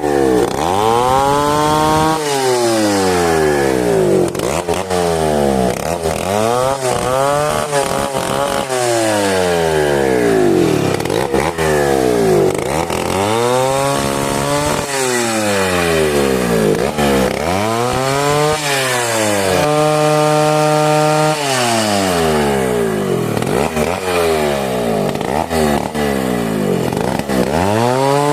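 Two-stroke chainsaw cutting mahogany, its engine pitch rising and falling over and over as it revs up and bogs down under load in the wood. About twenty seconds in it holds one steady high pitch for a couple of seconds before dropping again.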